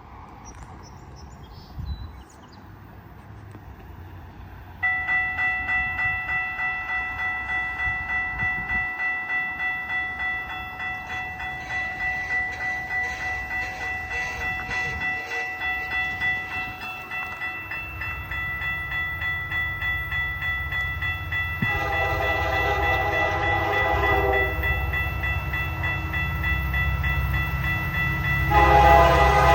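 A grade-crossing bell rings steadily, pulsing about twice a second, as a CN freight train approaches with a rising locomotive rumble. The lead locomotive's K3H air horn sounds one long blast after about twenty seconds and starts another near the end.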